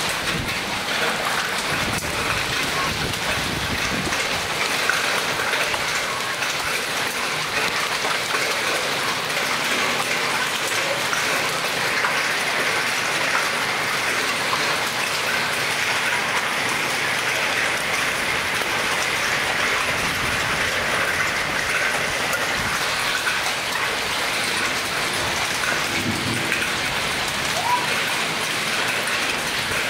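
Hailstorm with heavy rain: hailstones and rain falling thickly onto the ground, a steady, dense pattering that does not let up.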